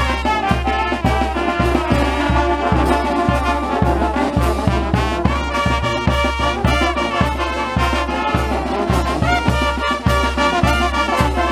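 Brass band playing a tune outdoors, sousaphone and trumpets among the horns, held brass notes over a steady low beat of about two strikes a second.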